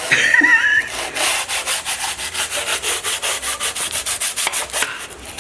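A flat file and fine emery paper wetted with kerosene rubbing back and forth across the aluminium gasket face of a BMW B48 engine, in quick, even strokes several times a second, scouring off leftover head-gasket material.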